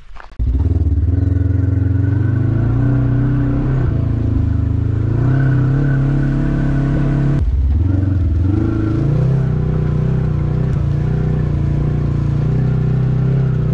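Off-road vehicle engine running steadily while riding a grassy trail, with a short break in the sound a little past halfway.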